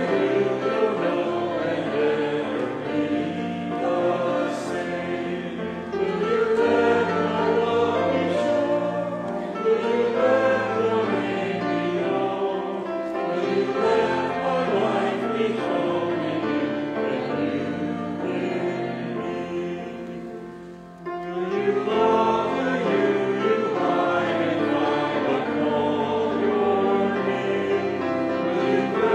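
A hymn sung by many voices together, with a short break between phrases about three-quarters of the way through.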